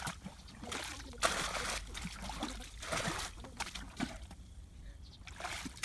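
Muddy water sloshing and splashing in irregular strokes as a plastic bucket is dipped and filled, bailing out a shallow pool. It goes quieter for about a second some four and a half seconds in.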